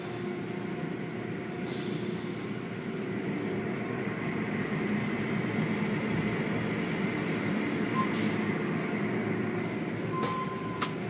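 Automatic car wash machinery running as a vehicle passes under hanging cloth curtains and foam: a steady mechanical rumble with a hiss that swells about two seconds in and eases off about eight seconds in, and a couple of short clicks near the end.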